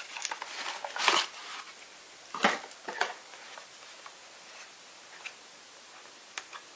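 Hands handling cardboard packaging and lifting out a small plastic-cased monitor: a few short scrapes and rustles. The loudest is about a second in, another comes around two and a half seconds in, and a couple of faint clicks follow near the end.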